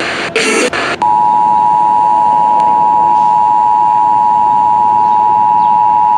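Emergency Alert System attention signal: after a short harsh burst of noise, a loud steady two-tone alert sound starts about a second in and holds without change.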